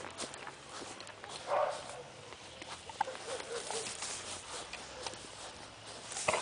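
Large fawn dog making short vocal sounds while she rolls and wriggles on her back in the grass, one louder sound about a second and a half in, over a steady rustle and scuffing of fur on grass.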